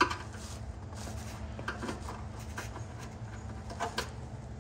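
Flathead screwdriver prying at a body plug in the car's underbody: a few faint scrapes and small clicks, the sharpest about four seconds in, over a steady low hum.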